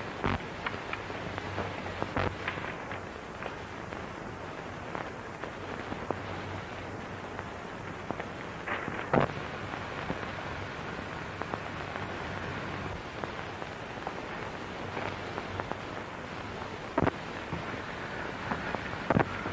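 Steady hiss and crackle of an old 1930s film soundtrack, with a faint hum and scattered sharp clicks and pops.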